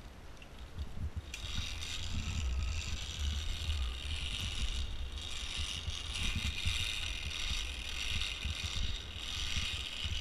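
Zipline trolley pulleys running along a steel cable: a steady high whir that starts about a second in, with wind buffeting the microphone underneath.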